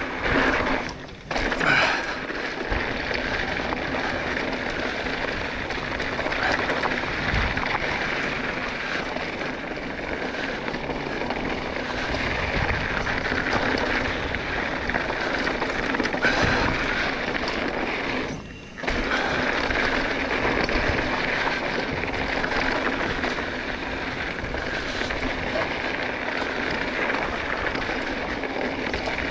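Mountain bike rolling fast over a dirt and loose-gravel desert trail, its tyres giving a steady crunching rush. The noise drops away briefly twice, about a second in and about two-thirds of the way through.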